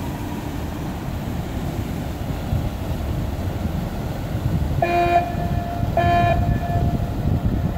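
Ship's horn of the border police patrol vessel Ștefan cel Mare sounds two blasts as it leaves harbour: a short one about five seconds in, then a slightly longer one a second later. Both play over a steady low rumble.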